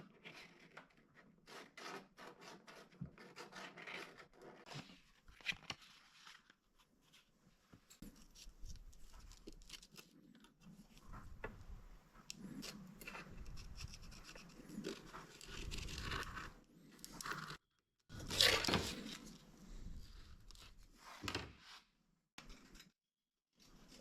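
Irregular scraping, rubbing and tearing of cardboard as a template is cut and handled, with a louder stretch of scraping past the middle.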